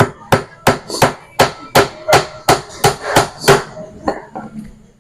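Hammer blows on plywood: about a dozen quick, even strikes at roughly three a second, stopping about three and a half seconds in.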